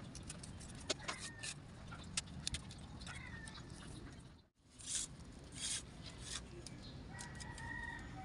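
Light clicks and rustles of woven rattan cane being handled and pressed along the bed frame, over a steady low background, with a few short bird chirps. The sound drops out briefly about halfway through.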